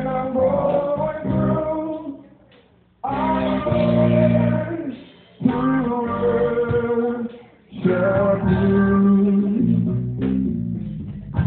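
Singing with guitar accompaniment, in long held notes over a strong low accompaniment. The phrases break off briefly three times.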